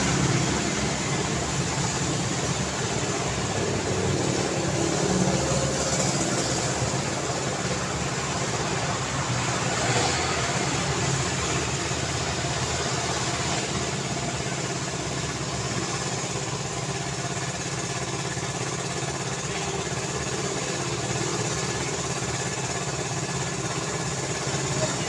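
Road traffic: vehicle engines running and passing in a steady wash of traffic noise, with a few passes swelling louder about five and ten seconds in.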